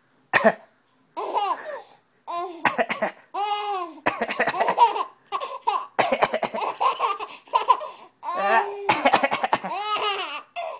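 A baby laughing hard, in short bursts at first and then almost without a break, at an adult's playful coughs, which are heard between the laughs.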